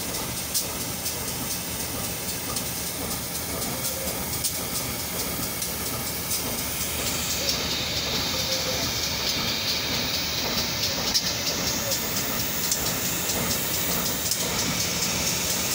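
Diesel-electric locomotive's engine running with a steady low hum under a constant hiss, with faint scattered clicks and cracks throughout.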